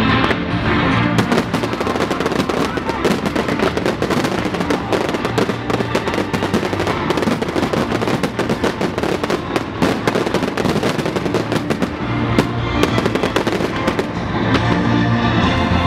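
Fireworks display: a dense barrage of shells bursting in rapid cracks and bangs from about a second in, thinning out after about twelve seconds, with rock music playing underneath throughout.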